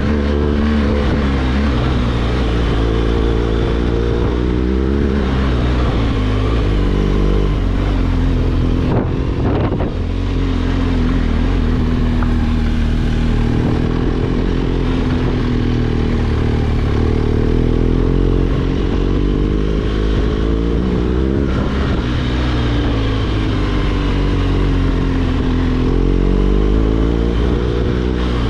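BMW R1200 GS Adventure's flat-twin boxer engine pulling in second gear, its note rising and falling again and again as the throttle opens and closes. About nine seconds in, the sound dips briefly with a few knocks.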